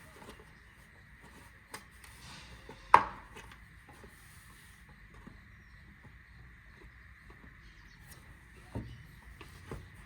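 A few sharp knocks and clicks of plastic and metal parts being handled as a scooter's chain cover is fitted back on, the loudest about three seconds in with a brief ring.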